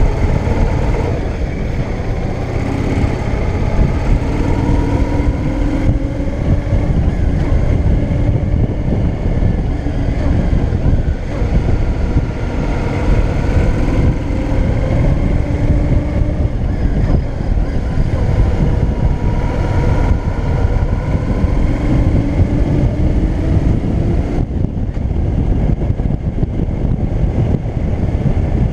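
Yamaha DragStar Classic's air-cooled V-twin engine running under way, its note climbing and easing off several times as the rider works the throttle. Heavy wind rumble on the action camera's microphone runs under it.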